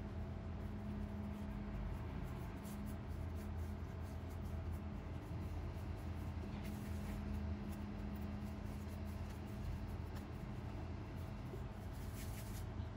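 Soft rubbing and light scraping of hands rolling pieces of bread dough into balls on a countertop, a little louder about three seconds in, at seven seconds and near the end, over a steady low hum.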